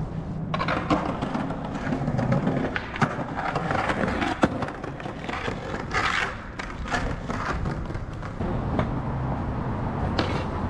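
Skateboard rolling on concrete pavement: a steady wheel rumble broken by sharp clacks and knocks of the board, the loudest about four and a half seconds in, and a short scrape about six seconds in.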